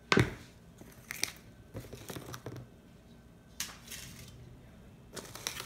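A plastic seasoning shaker set down on a granite countertop with a sharp knock, followed by scattered light clicks and rustles of the spice bottles being handled.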